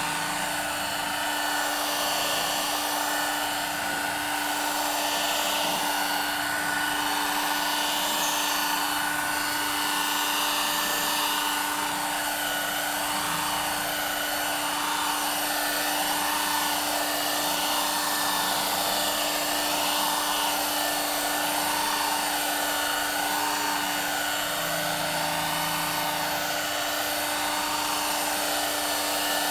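Electric rotary polisher running steadily at low speed, its pad buffing a gelcoat panel with finishing compound under light pressure. The motor's pitch wavers gently every couple of seconds as the pad sweeps across the panel.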